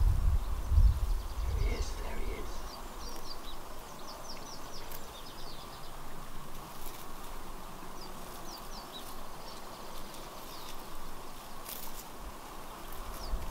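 Small birds chirping in the background, runs of short, quick falling notes, over faint steady outdoor noise. A low rumble on the microphone in the first second.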